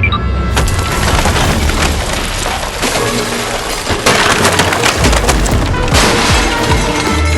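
Loud, dense crackling and splintering noise over background music.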